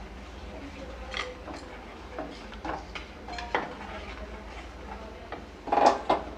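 Wooden spatula stirring whole spices in butter and oil in a nonstick pan, scraping and knocking lightly against the pan with scattered strokes and a louder cluster of scrapes near the end.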